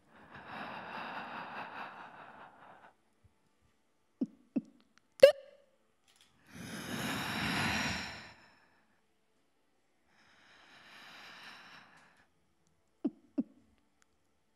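A woman breathing audibly into a close vocal microphone: three long, drawn breaths, the middle one loudest, with sharp mouth clicks between them, the sharpest about five seconds in.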